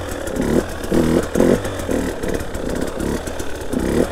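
Two-stroke engine of a KTM 300 EXC TPI enduro bike blipped in short throttle bursts, about two a second, its pitch rising and falling with each blip.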